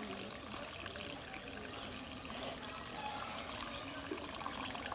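Water trickling and dripping off a wet cast net as it is lifted and gathered over a pond.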